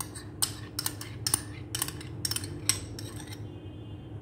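Metal spoon clinking and scraping against glass bowls as yogurt is scooped out onto the chicken: about eight sharp clinks, roughly two a second, that stop about three and a half seconds in.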